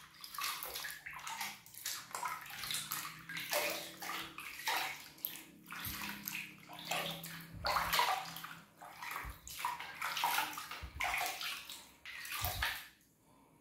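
Water splashing and sloshing in a plastic bucket as a hand scoops it up and pours and rubs it over a baby monkey's head during its bath, in a quick, irregular run of splashes that stops shortly before the end.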